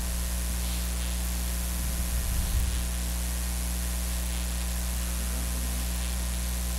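Steady electrical mains hum with constant hiss, picked up by the chamber's microphone and sound system.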